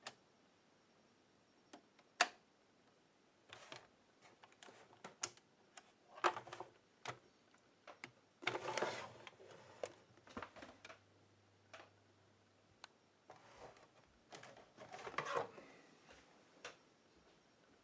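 Scattered clicks and handling noises of vintage video equipment being switched on and operated, with one sharp click about two seconds in and two longer rustling stretches.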